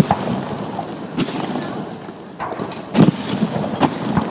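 Aerial fireworks shells bursting: a string of about six sharp booms less than a second or so apart, with a rumbling echo between them, the loudest about three seconds in.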